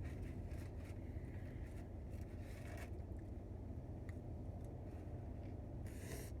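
Food packaging rustling and scraping during eating, in a few short bursts with the loudest near the end, over a steady low rumble.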